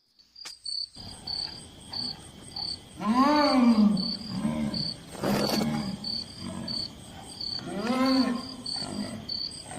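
An unseen wild animal calling in forest: two drawn-out moaning calls, each rising then falling in pitch and followed by a shorter one, over steady pulsing insect chirps. A sharp crack comes about halfway through.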